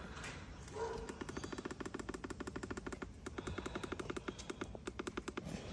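Faint, rapid electronic beeping, about ten short beeps a second, starting about a second in and running on steadily.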